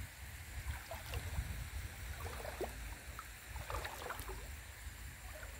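Light splashing and dripping of water as a monofilament gill net holding small fish is drawn out of a stream by hand, over a low steady rumble. The splashes cluster in the middle of the stretch.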